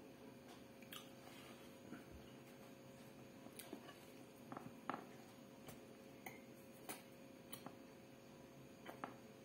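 Near silence with faint, irregular soft clicks about once a second: quiet chewing and mouth sounds of a person eating potatoes with stewed beef.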